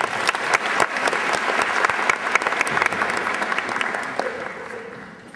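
Audience applauding, a dense patter of many hands clapping that tails off near the end.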